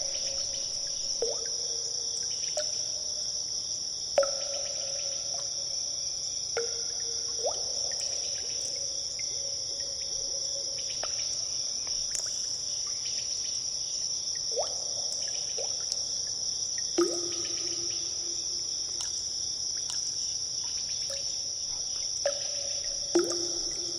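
Water drops falling into a pool in a cave. Each lands with a sharp plink and a short ringing note, irregularly, every one to three seconds, over a steady high-pitched hiss.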